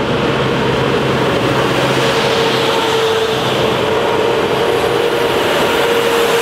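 Lithuanian Railways class 630M diesel multiple unit passing close by: a loud, steady rumble of engine and wheels on the rails with a steady hum running through it.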